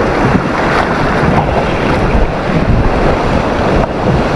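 Loud, steady wind on the microphone mixed with the wash of sea surf.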